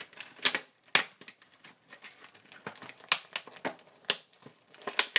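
Foil booster packs and the plastic blister packaging being handled: a series of short, sharp crinkles and clicks, about half a dozen louder ones scattered irregularly.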